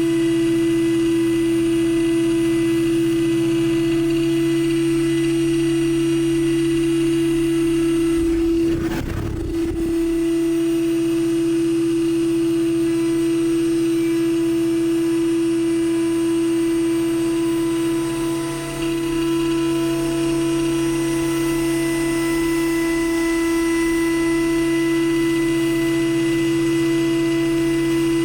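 CNC mill spindle running at a steady speed: a steady whine with fainter overtones over a low hum. About nine seconds in, a brief rumble lasting just over a second.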